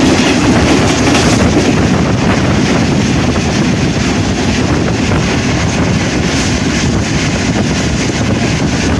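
Steady rush of air and rail noise from a passenger express passing at high speed, with wind buffeting the microphone.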